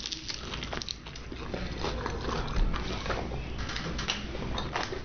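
Close-up chewing of a mouthful of chicken: wet, irregular mouth clicks and smacks as it is bitten and chewed.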